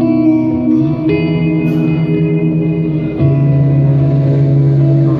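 Electric guitar played through a Line 6 HX Stomp on an ambient patch: sustained chords washed in reverb and echo. The chord changes about a second in and again about three seconds in.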